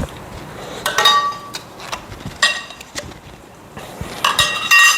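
Steel greenhouse frame tubes and fittings clinking and knocking against each other as they are handled and pushed together, several knocks leaving a short metallic ring. The loudest clatter comes near the end.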